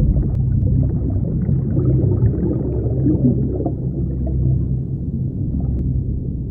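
Low, steady underwater rumble with bubbling over it, as of a scuba diver's exhaled bubbles rising from the regulator.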